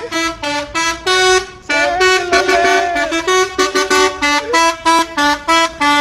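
Truck's telolet horn, a multi-tone musical air horn, playing a loud melody of short notes that jump from pitch to pitch, quickening to about three or four notes a second before cutting off near the end.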